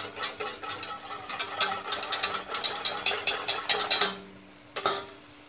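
Wire whisk clicking and scraping rapidly against a stainless steel saucepan, stirring water and butter until the butter melts and the water boils, the first stage of choux pastry. The whisking stops about four seconds in, followed by one more sharp knock of metal on the pan.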